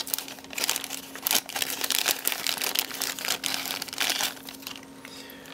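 Thin clear plastic parts bag crinkling as fingers handle and work it open: dense, irregular crackling for about four seconds, fading to a faint rustle near the end.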